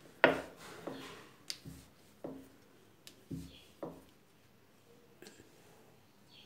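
A wooden rolling pin knocking and rolling on a stone countertop as small dough rounds are rolled out: about six light knocks in the first four seconds, then only faint handling.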